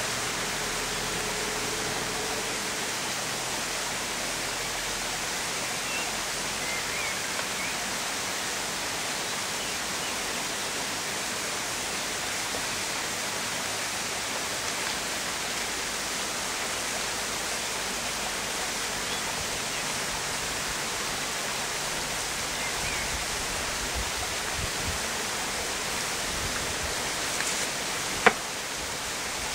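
A steady, even hiss of outdoor background noise, with one sharp click about a second before the end.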